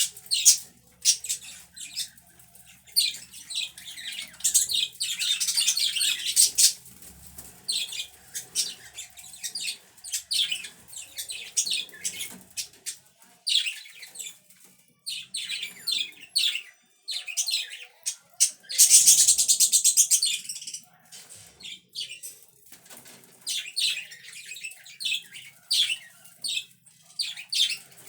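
Pet budgerigars chirping and warbling: many short, high chirps, with two longer, denser bouts of chatter, one about five seconds in and one around nineteen seconds.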